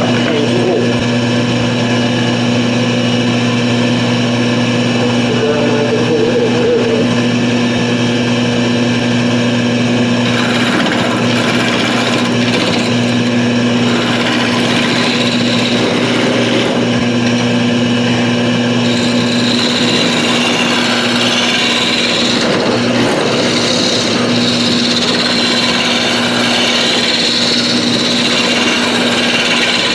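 Wood lathe running with a steady motor hum while a turning tool cuts the spinning wood. The scraping cutting noise gets stronger about a third of the way in and again past the middle.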